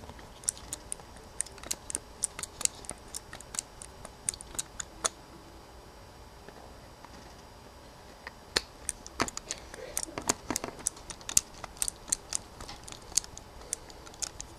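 Small sharp clicks and taps of a Phillips #0 screwdriver working the tiny screws out of a compact camera's body: a quick run of clicks for about five seconds, a pause of a few seconds, then another run.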